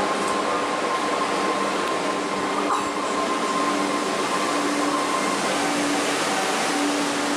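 Alstom Coradia electric multiple unit pulling slowly into the platform and braking toward a stop: a steady rush of running noise with a thin whine that fades about halfway and a lower hum that comes and goes near the end.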